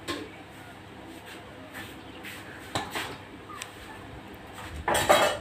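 A few light clicks and taps of a hand tool on a small electric water pump's metal casing, then one short, louder scrape near the end. The leaking pump body is being cleaned dry before M-seal epoxy putty goes on.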